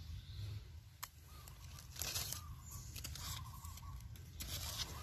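Dry leaf litter rustling and crunching in irregular bursts as a knife is worked into the ground to cut wild mushrooms out at the base, with a click about a second in. A faint steady high tone runs underneath from about a second in.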